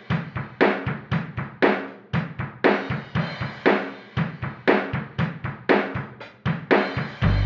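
Intro music: a drum-kit beat of bass drum, snare and cymbals, with a strong hit about once a second and lighter strokes between. A deep bass line comes in near the end.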